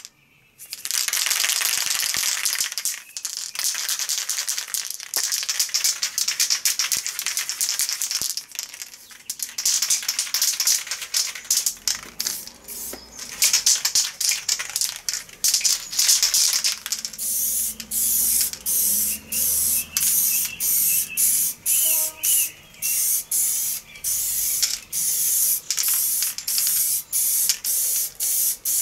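Aerosol spray paint can hissing: long stretches of spraying, then in the last third short bursts in a quick steady rhythm, about one or two a second.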